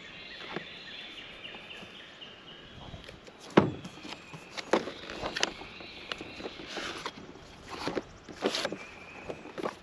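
A cardboard product box being handled and opened on a table: scattered taps, scrapes and knocks from the box and its lid, the loudest knock about three and a half seconds in.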